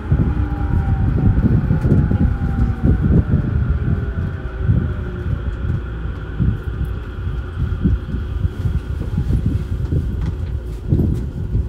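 Interior running sound of a JR E231-0 series electric train's motor car braking to a stop: the traction motor and inverter whine falls in pitch and fades out in the first few seconds, over steady wheel-on-rail rumble with irregular low thumps as the train slows to walking pace.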